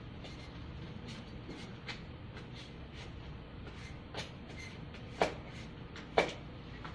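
Scattered light clicks and taps over a low steady hum, with two sharp, louder clicks about a second apart near the end.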